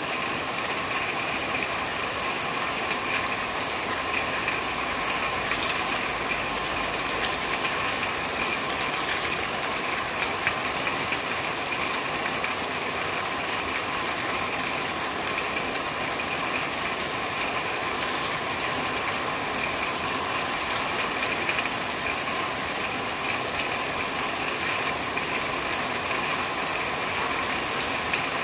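Steady rain falling on a corrugated roof: a dense, even hiss of drops hitting the sheeting, with no let-up.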